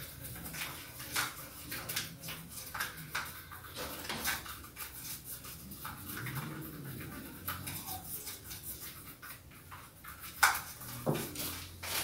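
A thin stick stirring a wet mixture of soil, glue and water in a small plastic tray: irregular light scraping clicks against the tray as the mud paint is mixed, one louder knock near the end.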